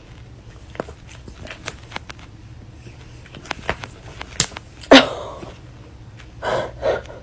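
Soft rustling and taps of bedding as cats paw at a woman's face. About five seconds in she gives a sharp, short pained cry that falls in pitch, then two shorter whimpering cries near the end.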